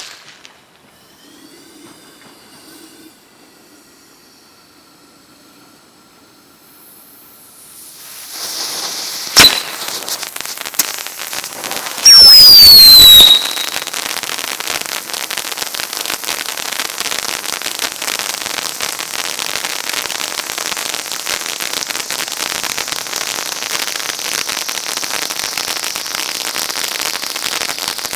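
Skull Fountain ground fountain firework: after several quiet seconds it lights about eight seconds in and sprays with a steady hiss and fine crackle. There is a single sharp crack about a second later and a loud falling whistle around twelve seconds in, then the crackling spray runs on.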